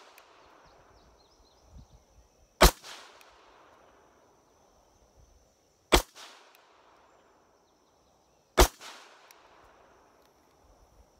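Three shots from a Makarov pistol firing 9×18mm Makarov steel-cased full-metal-jacket rounds, spaced about three seconds apart. Each shot is followed by a short echo that dies away.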